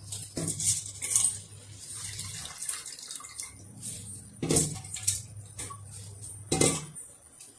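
Raw rice poured into a pressure cooker of watery masala gravy, splashing, with a few sharp knocks of the bowl and ladle against the aluminium cooker over a low steady hum.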